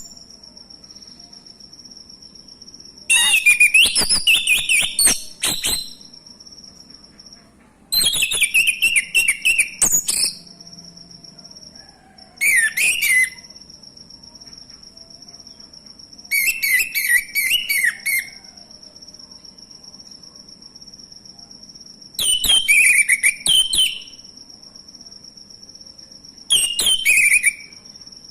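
Male orange-headed thrush singing in short phrases of quick, varied whistled notes, six bursts a few seconds apart, over a cricket's steady high trill.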